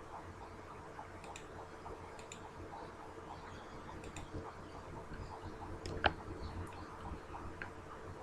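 Faint, irregular small clicks with one sharper click about six seconds in, over a low steady hum.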